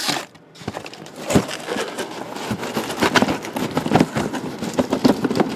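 Shrink-wrapped card boxes being handled in an opened cardboard case: crinkling plastic wrap and rubbing cardboard, with scattered knocks.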